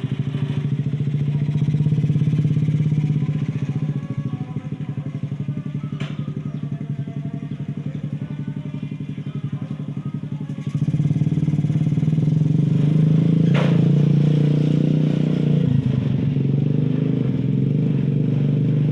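Motorcycle engine of a homemade mini jeep running with a steady pulsing exhaust note, stepping up louder about eleven seconds in. Two brief sharp knocks sound, one about six seconds in and one near fourteen seconds.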